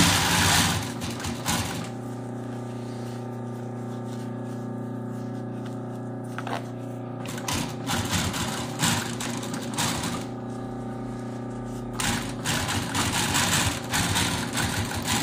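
Post-bed industrial sewing machine stitching the lining onto a sneaker upper in short runs: one at the very start, another from about seven and a half to ten seconds in, and a third from about twelve to fifteen seconds in.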